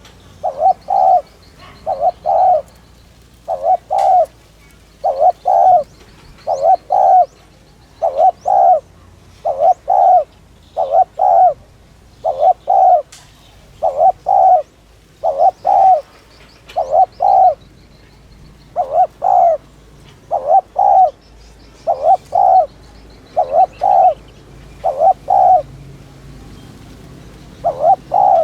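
A spotted dove cooing in quick, urgent phrases (the 'thúc' coo), each a short run of two or three low coos, repeated about every second and a half with one brief break near the end. This is the excited cooing that keepers play to rouse and train decoy doves.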